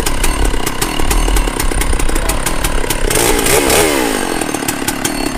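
Chainsaw engine running, its pitch rising and falling repeatedly, revving up sharply about three seconds in and then dropping back.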